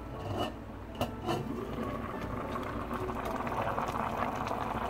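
Soy-braised chicken and vegetables simmering in a pot on low heat, bubbling more and more loudly. Three light knocks come in the first second and a half.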